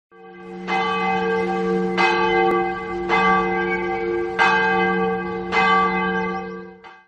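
Large church bell tolling, struck five times a little over a second apart, each strike leaving a long ringing hum of several pitches. It dies away just before the end.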